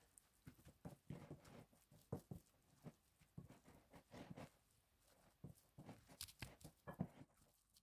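Faint, irregular wet squishing and soft thuds of a thick lentil-and-grated-vegetable cutlet mixture being mixed and pressed in a bowl.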